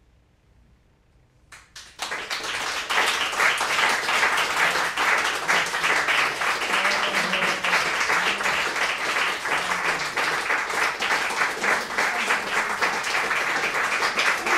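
Near silence, then a few single claps about a second and a half in, and full audience applause breaks out at about two seconds and keeps going steadily.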